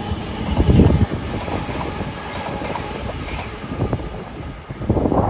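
Sydney Trains double-deck electric suburban train running past close by: a steady rumble of wheels on rail with intermittent clattering knocks, loudest about a second in.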